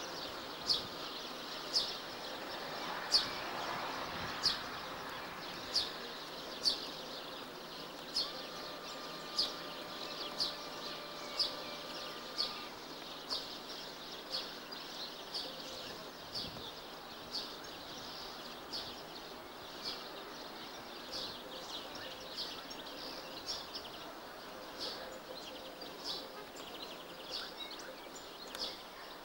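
Outdoor ambience: a short high chirp repeating about once a second over a faint steady hiss.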